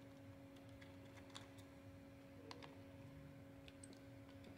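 Near silence: a faint steady hum with a few scattered light clicks of hands and small tools working on the open laptop.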